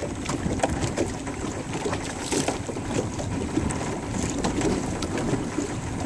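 Wind buffeting the microphone over choppy water lapping against the side of a small boat, with scattered light splashes and ticks.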